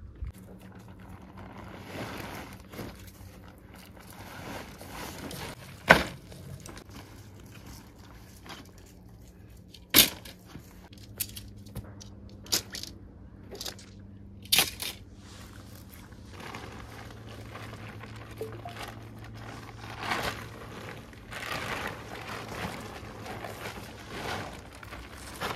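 A series of sharp knocks, the loudest about six and ten seconds in and a few more between twelve and fifteen seconds, with rustling and scraping noise between and toward the end, over a faint steady low hum.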